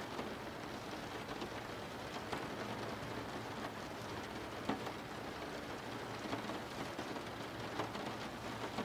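Steady rain falling, with a few louder drops ticking now and then.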